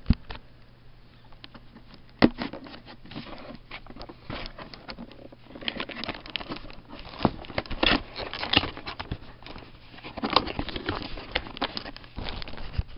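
Cardboard box being cut and opened with a utility knife: a run of irregular clicks and crackles of blade, tape and cardboard flaps, busier in the second half, with one sharp click about two seconds in.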